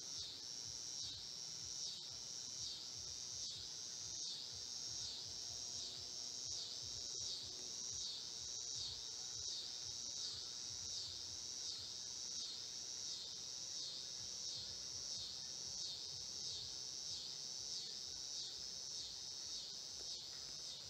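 Chorus of insects at dusk, a high-pitched chirping that pulses in a steady rhythm, about one and a half pulses a second.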